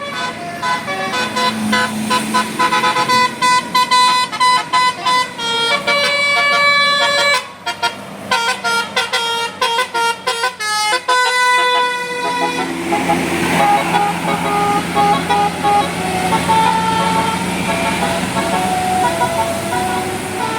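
Bus telolet horn, a Basuri-type multi-tone musical air horn, playing a tune in quick, changing notes. About twelve seconds in it turns to slower, longer held notes over a noisy background.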